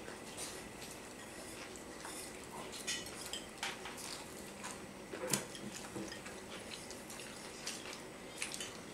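Scattered light clinks and scrapes of forks and spoons against plates as people eat, a little louder around the middle.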